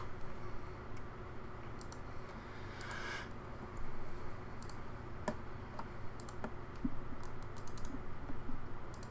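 Sparse clicks of a computer keyboard and mouse, irregular and fairly quiet, over a faint steady low hum.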